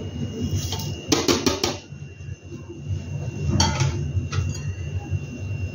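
Kitchen bowl and spoon clinking and knocking as they are handled: a quick run of four clicks about a second in, and a few more about halfway through, over a steady low rumble.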